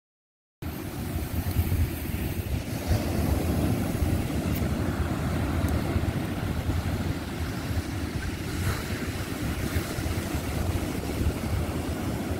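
Surf breaking on a sandy beach, with wind rumbling on the microphone; the sound cuts in suddenly after half a second of silence.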